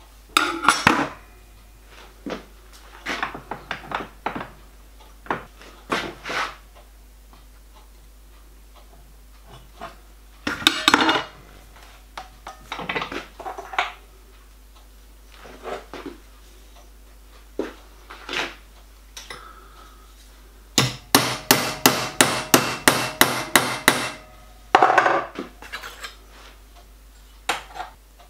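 Hammer blows on a small metal bracket clamped in a bench vise, bending the bracket to shape: scattered single strikes and taps, then a quick run of about a dozen blows, roughly four a second, near the end.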